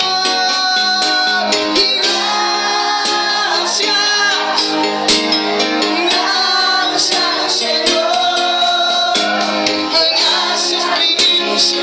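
A man singing a worship song into a microphone while accompanying himself on a Yamaha electronic keyboard.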